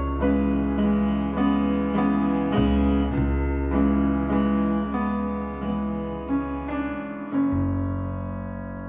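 Background piano music: notes and chords struck at an even, unhurried pace, ending on a chord that is held and fades away about two-thirds of the way through.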